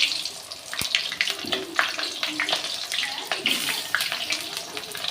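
Cut potatoes frying in a little hot oil in a kadai: a steady sizzle with many sharp crackles and spits.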